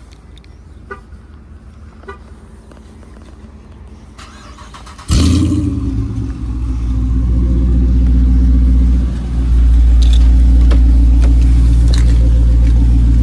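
2019 Dodge Charger R/T's 5.7-litre HEMI V8 remote-started from the key fob: a sudden loud start-up burst about five seconds in, settling into a steady, loud idle. Before it there are a couple of faint clicks.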